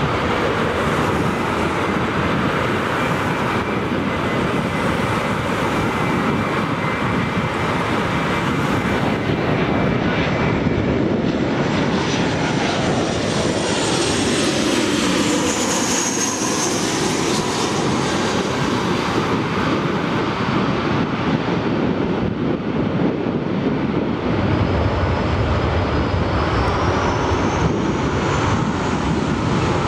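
Jet airliner engines running, a steady loud roar with a high whine that sweeps down and back up around the middle; a pair of rising whistles and heavier low rumble come in near the end.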